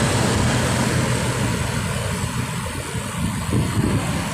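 Wind rushing over the microphone and road rumble from a bicycle riding along a road. A steady low engine hum from nearby traffic fades out about halfway through.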